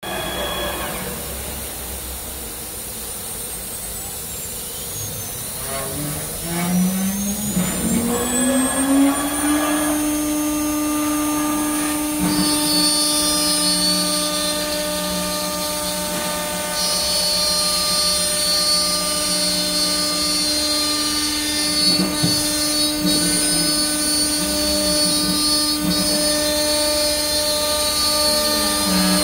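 AccTek CNC router spindle spinning up, its whine rising in pitch for several seconds, then running at a steady high pitch while the bit routs into an MDF board.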